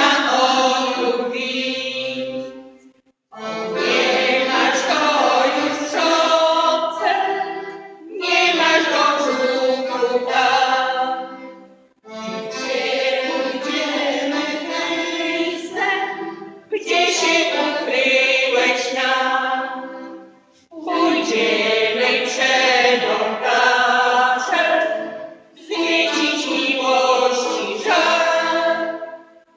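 A women's folk vocal group singing a Polish Christmas carol (kolęda) together, with piano accordion accompaniment. The song goes in phrases of about four seconds with a brief pause for breath between each.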